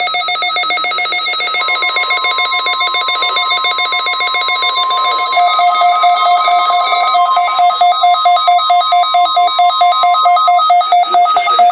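NOAA Weather Radio's steady 1050 Hz warning alarm tone, sounding as a weekly test, from about a second and a half in until near the end. Under and around it, a weather alert receiver's electronic alarm beeps in a fast pulsing pattern, set off by the test signal.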